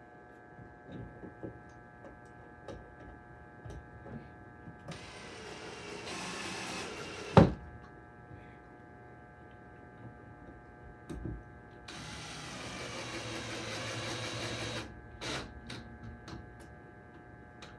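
Cordless DeWalt drill-driver running twice for about three seconds each, backing out two bracket screws, with a sharp knock at the end of the first run and light handling clicks between.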